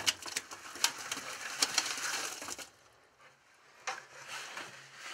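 A bucketful of dead bluegills and other panfish sliding and dropping out of a plastic bucket into a utility sink: a quick run of sharp knocks and slaps for about two and a half seconds, a short lull, then more knocks and scraping as the last fish are shaken out.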